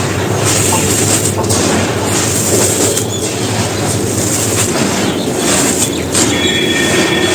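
Soft, dusty bricks being crushed and crumbled, a dense, continuous crunching and grinding. A short high squeak comes near the end.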